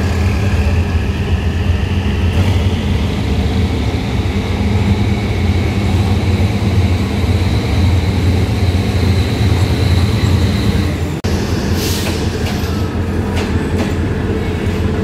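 Diesel-electric locomotive No. 4043 hauling passenger coaches slowly past: a steady low engine drone under a high whine that rises over the first two seconds and then holds. About twelve seconds in comes a short burst of hiss, then a few sharp clicks of the wheels.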